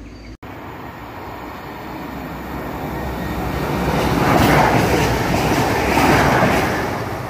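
Pair of Class 220 Voyager diesel multiple units passing through the station without stopping, the rail and engine noise swelling as they approach, loudest about four to six seconds in, then fading as they draw away.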